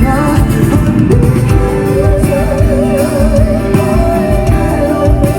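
Live band playing a pop song with singing, loud and steady. In the second half a long wavering note is held.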